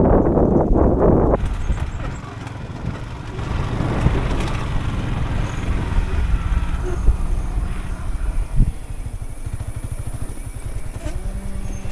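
Motorcycle engine running with a low, pulsing rumble, with wind buffeting the microphone for about the first second.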